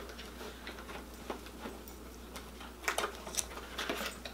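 Light, scattered clicks and rustles of a cardboard toy box being handled as a ball is taken out of it, with a few sharper ticks about three seconds in.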